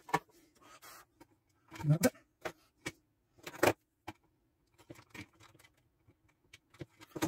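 Hands handling wires and tools in a plastic electrical gang box: an irregular string of clicks, taps and knocks, the loudest about two and three and a half seconds in, over a faint steady hum.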